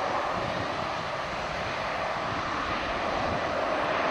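Boeing 737-300's CFM56-3 turbofan engines running as the jet rolls along the runway: a steady rushing jet noise that grows slightly louder towards the end.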